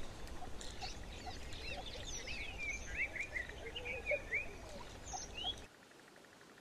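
Birds chirping and calling in quick, varied rising and falling notes over a steady low rumble of wind. Near the end the sound drops sharply quieter.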